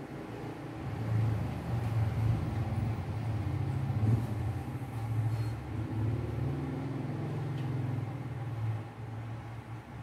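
Low, steady rumble of a running engine. It swells about a second in and eases off near the end.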